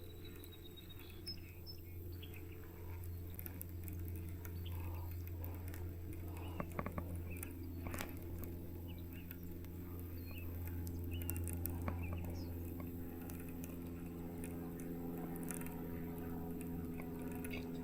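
Fishing reel being cranked on a steady retrieve: a faint, steady low whir with scattered small clicks and ticks.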